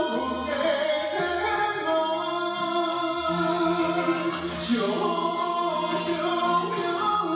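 Karaoke backing music for a Taiwanese Hokkien ballad, played through a KTV room's speakers and picked up on a phone, with a melody in long held notes over a steady bass.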